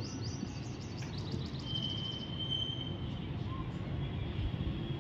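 Outdoor background noise with a steady low rumble, and a bird giving a fast run of high rising chirps, about five a second, that stops about two seconds in. A brief steady high note follows.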